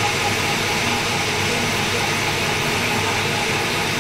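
Lathe machine running steadily: a constant machine noise with a low hum under a broad hiss.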